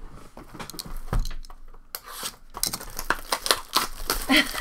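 Plastic shrink-wrap on a trading-card booster box being cut and torn off, crinkling and crackling from about two seconds in. A low thump comes about a second in.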